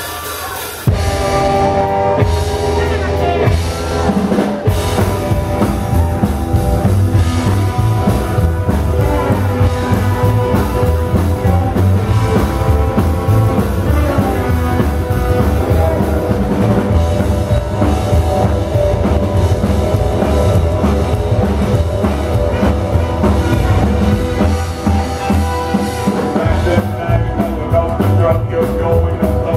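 Live rock band starting a song about a second in, with drum kit, upright double bass and acoustic guitar playing fast and loud.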